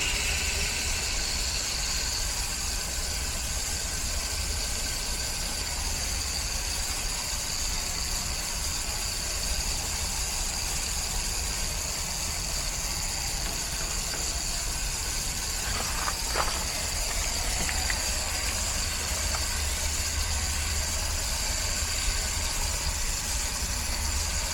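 Steady motor hum with a continuous hiss of water spraying onto a condenser coil during its rinse. A brief sharp knock about sixteen seconds in.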